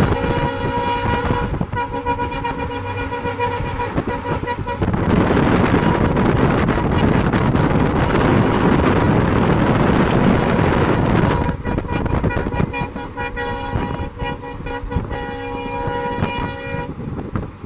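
WDP4 diesel locomotive's multi-tone air horn sounding long honks, with a short break about a second and a half in. From about five seconds in, a loud rushing rumble takes over for about six seconds, then the horn sounds again for about five seconds.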